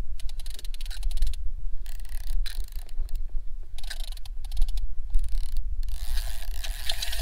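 Ratchet clicking of a large single-action trolling reel in rapid bursts with short pauses, as line goes on and off the spool while a hooked fish is played.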